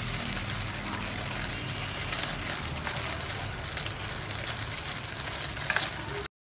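Beef tapa sizzling in its sauce in a frying pan, with metal tongs clicking and scraping against the enamel pan now and then. It stops abruptly near the end.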